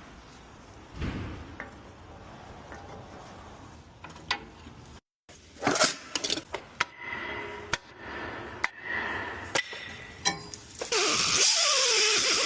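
Metal hand tools clinking and knocking against car engine parts, a string of sharp taps in short cut-together clips. Near the end a loud steady hiss with a wavering tone comes in.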